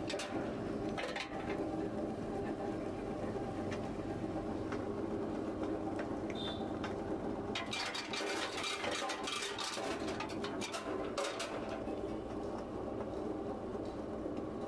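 Areca nut cutting machine running with a steady motor hum, with spells of rapid clattering clicks as whole nuts go through the cutter, the thickest spell about eight seconds in.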